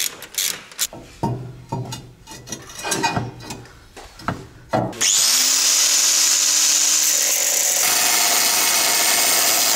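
Scattered metallic clicks and knocks of hand tools working bolts on the frame. About five seconds in, an angle grinder starts and cuts steel with a loud steady noise that lasts to the end.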